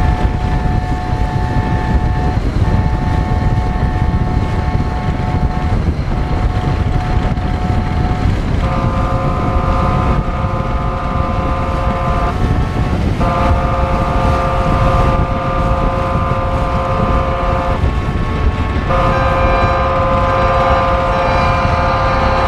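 Wind on the microphone and the rumble of a boat's engine, with ships' horns sounding a series of long blasts several seconds each, with short breaks between them. The horns grow louder and fuller from about nine seconds in.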